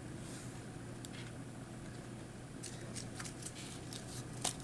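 Sleeved trading cards being handled: faint scattered clicks and rustles as a card is laid on the playmat and a deck is sorted in the hands, with a sharper click near the end, over a steady low hum.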